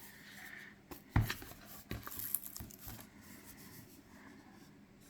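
Tarot deck box and its packaging being handled: a sharp knock about a second in, then light crinkling and a few clicks.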